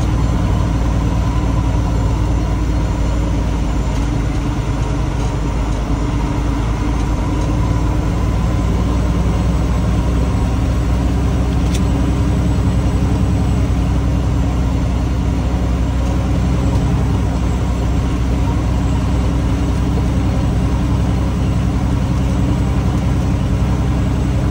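Peterbilt 389 truck's diesel engine running steadily as the truck drives, heard from inside the cab as an unchanging low drone.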